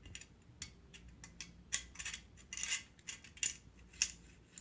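M1 carbine's steel bolt being handled and fitted into the receiver: a series of sharp metallic clicks and clacks, most of them in the second half.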